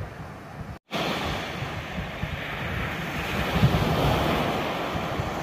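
Sea surf washing on a sand beach, a steady rushing hiss, with wind buffeting the microphone in low gusty rumbles. The sound drops out for an instant about a second in, then comes back louder.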